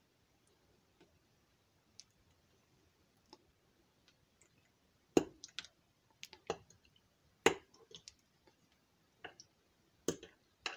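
Metal spoon clinking and scraping against a stainless steel saucepan as the last of the vegan mozzarella is scooped out, with faint ticks at first and then a few sharp knocks in the second half.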